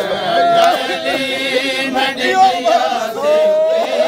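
A group of men chanting a Punjabi noha (mourning lament) together, many voices singing one wavering, drawn-out melody.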